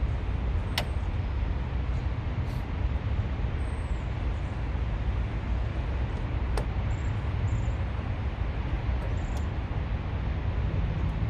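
Steady rumble of highway traffic, with a few sharp clicks about a second in, midway and near the end.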